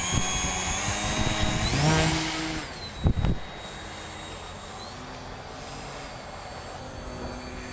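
Electric brushless motor of an RC model plane whining, its pitch rising and falling with the throttle, over wind rumbling on the microphone. A short loud thump comes about three seconds in.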